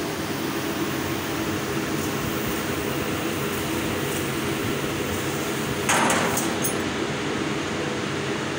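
CNC laser cutting machine cutting a pattern in steel sheet: a steady hum with a hiss over it. About six seconds in comes a brief louder hiss with a few clicks, after which the high hiss drops away.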